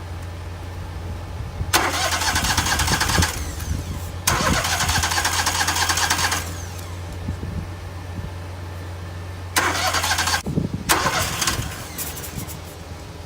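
The Wood-Mizer LT15 sawmill's engine being cranked by its starter in four separate attempts of one to two seconds each, on a machine that won't start. A steady low hum runs underneath and stops about ten seconds in.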